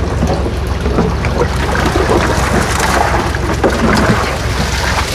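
Water gushing and splashing steadily, over a constant low engine hum. This is typical of fish and water being released from a tank into the pond during stocking.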